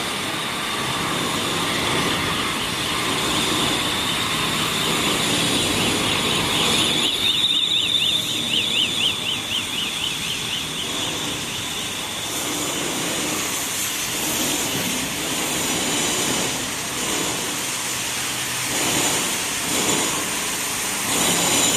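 Steady mechanical din of a casting and forging workshop with machinery running. From about 7 to 11 seconds in, a high warbling tone rises and falls about four times a second.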